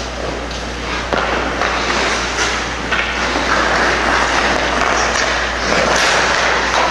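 Hockey skate blades scraping and carving on rink ice, with a few sharp clacks of sticks and puck.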